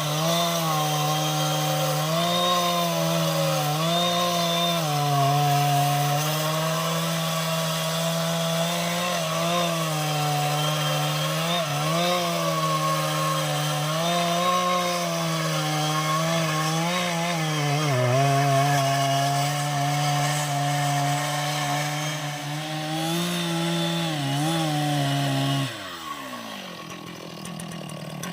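Two-stroke chainsaw running at full throttle while cutting jackfruit wood, its pitch dipping and recovering as the chain bogs in the cut. About 26 seconds in the throttle is released and the engine winds down to idle.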